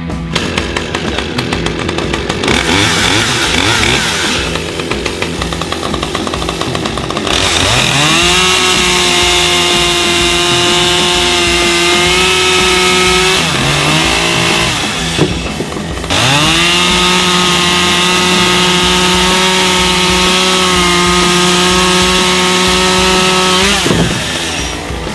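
Husqvarna chainsaw cutting through a log. It revs up to full throttle at about eight seconds and holds a steady pitch under load. It drops back briefly around fourteen seconds, revs up again for a second long steady cut, and falls away near the end.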